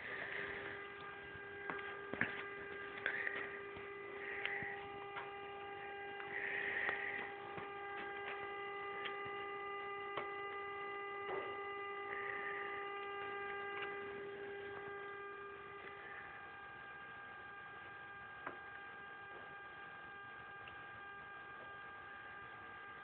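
Steady electrical hum made of several steady tones, with a few scattered clicks and soft rustles in the first half. The lowest tone stops about two-thirds of the way through.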